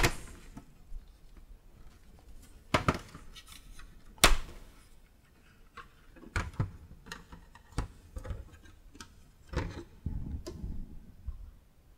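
Irregular clicks and knocks of plastic parts being handled as a vacuum cleaner is opened and its filters are taken out, about half a dozen sharp ones spread over the stretch.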